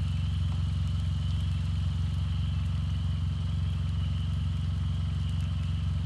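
A car engine idling steadily: an even low rumble with a faint steady high whine above it.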